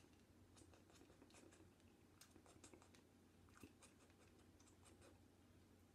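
Near silence with faint, scattered clicks of a jelly bean being chewed with the mouth closed.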